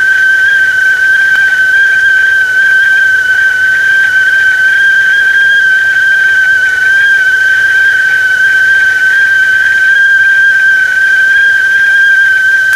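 Whistling kettle at the boil, giving one loud, steady, high whistle held at the same pitch throughout.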